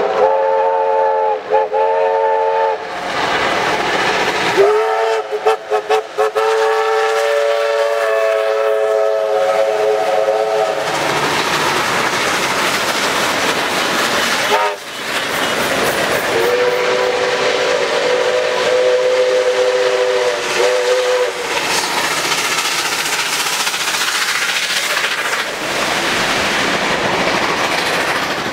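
Steam locomotives running hard side by side, with the continuous noise of exhaust and wheels on rail, sounding multi-note chime whistles three times: at the start, again about five seconds in beginning with short toots, and a third long blast about seventeen seconds in.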